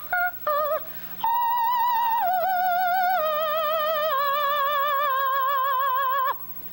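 A woman's soprano voice singing unaccompanied: a few quick short notes, then a long high line with strong vibrato that steps down in pitch several times before breaking off near the end.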